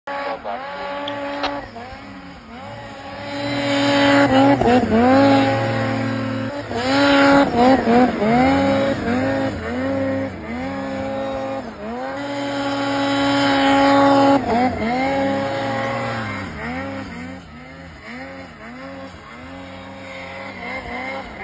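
Snowmobile engine revving up and easing off again and again as the sled is ridden through deep snow, holding high revs for a couple of seconds at a time, with quicker throttle blips near the end.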